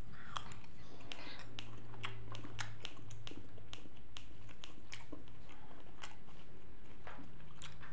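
Close-miked chewing of a mouthful of bakso meatball in broth: wet mouth clicks and smacks, many short sharp ones scattered throughout, over a low steady hum.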